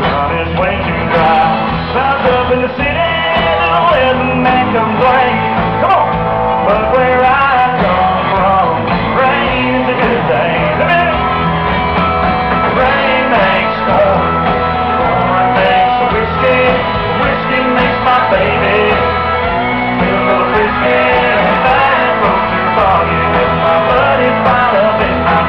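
Live country band playing loudly: a male lead voice singing over acoustic guitar, drums and bass, heard from the audience.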